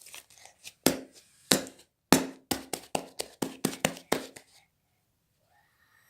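Slime being squeezed and worked by hand, giving a quick run of sharp pops and snaps, about four a second over some three seconds.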